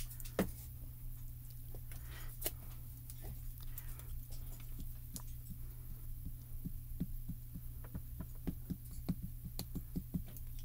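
A small ink pad dabbed again and again onto a clear stamp mounted on an acrylic block: a run of light, irregular taps, several a second, with a sharper click about half a second in, over a steady low hum.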